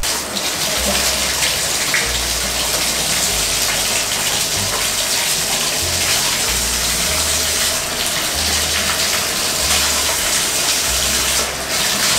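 Water running steadily from the bathtub tap and handheld shower into the tub, turned on suddenly right at the start, to rinse the lather off a French bulldog.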